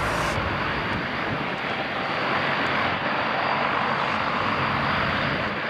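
Embraer KC-390's two turbofan jet engines running, a steady, even jet noise as the transport moves on the runway.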